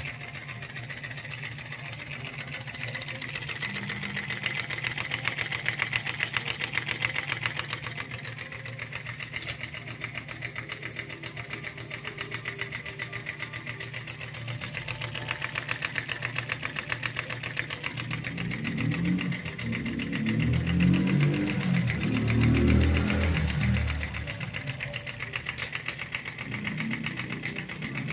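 Small homemade candle-heated Stirling engine running, with a rapid, steady clatter from its wire crank linkage and flywheel. A louder low rumble comes in about two-thirds of the way through and fades again.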